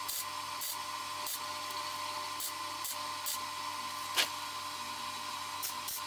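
Metalworking on a broken exhaust stud in an LS V8's aluminum cylinder head: a steady whine with short, irregular hissing bursts, and one sharp click about four seconds in.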